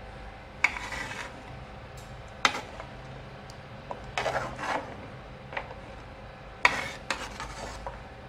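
Steel spoon stirring and scraping inside a large metal cooking pot of thin beef paya broth, mixing in the fried masala, with a scrape against the pot about every two seconds.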